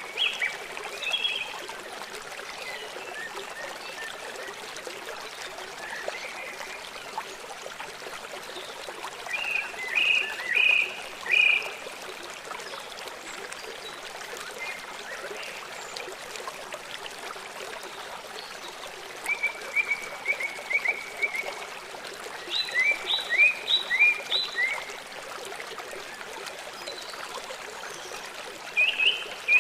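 Steady running water of a stream, with short bouts of quick repeated high calls about every five to ten seconds.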